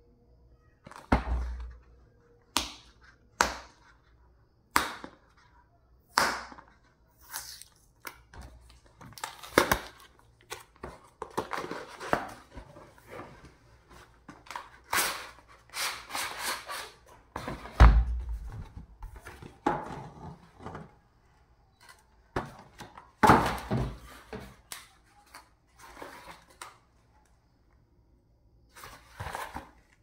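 A cardboard keyboard box being handled as its printed paper sleeve is slid off: irregular knocks, scrapes and rustles of card against card, with a few heavier thuds.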